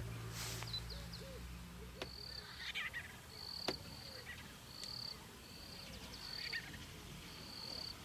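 White-fronted bee-eaters giving short chirping calls, while a high, steady buzzing note repeats about once a second. A low hum stops about two seconds in, and there are a couple of sharp clicks.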